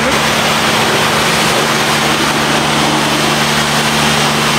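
Self-service car-wash pressure lance spraying water onto a vehicle: a loud, steady hiss of spray over the steady low hum of the pressure pump.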